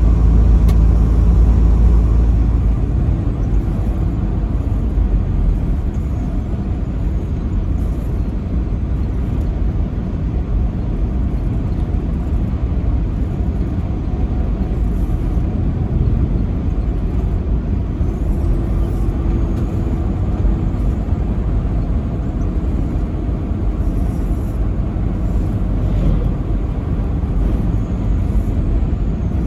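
Truck on the road: a steady low rumble of engine and road noise while driving, a little louder for the first couple of seconds.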